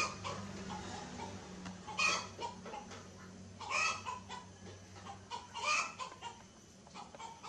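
Short animal calls, one about every two seconds, over a low steady hum.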